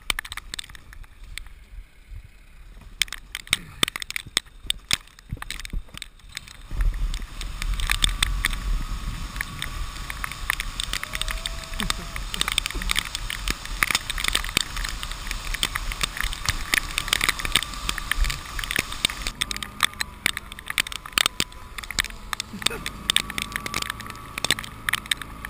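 Plastic sled towed over snow: a constant crackling scrape and patter of the sled on the snow, joined about seven seconds in by a low rumble as it gets moving and a faint steady whine.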